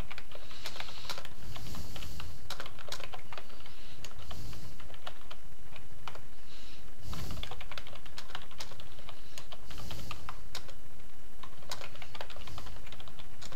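Typing on a computer keyboard: a quick, irregular run of keystroke clicks with short pauses between words.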